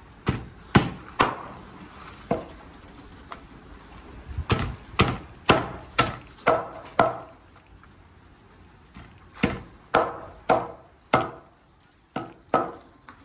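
Meat cleaver chopping raw meat on a cutting board: sharp chops in several bursts, often about two a second, with short pauses between the bursts.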